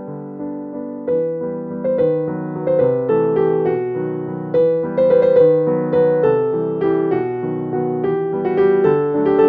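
Background piano music: a gentle melody of single struck notes, each fading after it sounds.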